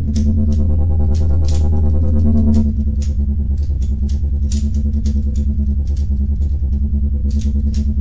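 Electronic background music with a steady beat over a heavy bass line; the sustained higher notes drop out about two and a half seconds in.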